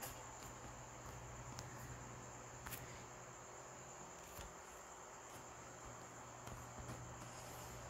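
Quiet background: a faint steady high-pitched whine with a low hum underneath and a few faint clicks.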